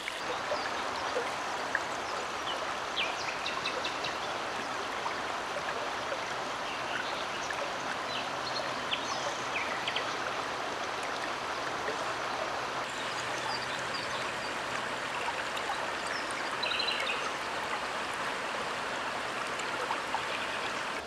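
Shallow river flowing over a gravel bed: a steady, even rush of running water, with a few short, faint high chirps over it.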